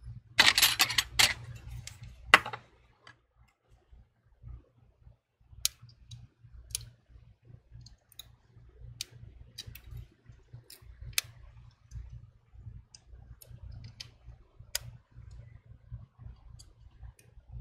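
Small sharp clicks, scattered a second or so apart, of tweezers picking at and seating small parts on an iPhone 11 display assembly. Near the start there is a short rustling scrape and two louder clicks as the assembly is handled.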